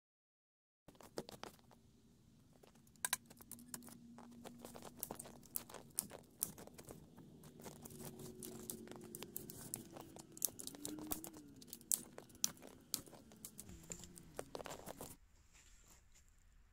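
Dry twigs and sticks being snapped and broken by hand for kindling: a quick, irregular run of sharp cracks and crackles. Under it is a faint low hum that wavers in pitch. It all stops about fifteen seconds in.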